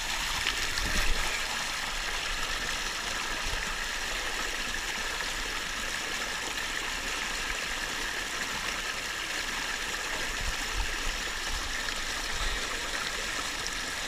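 Water rushing steadily down the chute at the top of a steep speed water slide, a constant even hiss of flowing water.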